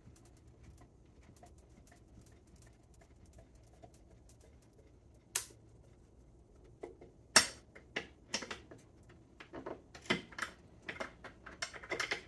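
Small metal parts on a motorcycle being handled by hand: a sharp click about five seconds in, a louder one two seconds later, then a quick string of clicks and light rattles.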